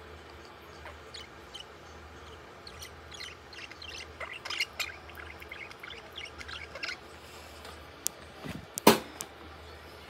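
Budgerigar chattering in quick, scattered high chirps and squeaks, busiest around the middle. A single sharp knock near the end is the loudest sound.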